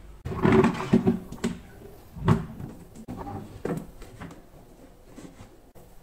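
Laminated particleboard cabinet box being pushed and shifted into place. Its panels knock and scrape against the neighbouring cabinet and the wall, with the loudest knock a little over two seconds in and a few lighter ones after.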